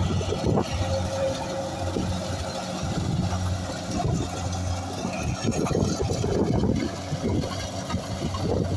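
An engine running steadily with a low hum, with irregular clattering and knocking over it.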